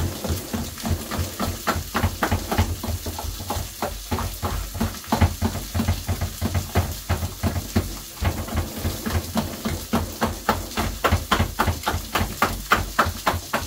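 Potato masher pounding boiled potatoes with milk in a metal saucepan: a steady rhythm of soft thuds, several a second, growing denser and louder in the last few seconds.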